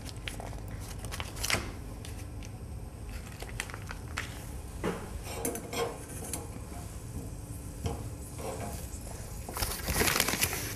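Butter being cut from a foil-wrapped block and put into a small stainless steel saucepan with a knife: scattered light clinks of knife on metal and foil crinkling, with a busier rustle and clatter near the end.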